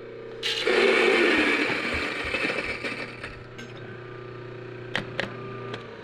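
Mahlkönig EK43 coffee grinder grinding a single dose of espresso beans. A loud crunching grind starts about half a second in and fades out over the next three seconds as the beans run through. The motor then hums on empty and is switched off shortly before the end.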